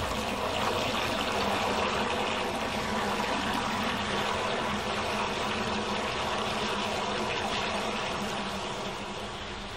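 Water rushing steadily into a DN 50 siphonic roof drain, getting a little quieter near the end as the pool around the drain draws down.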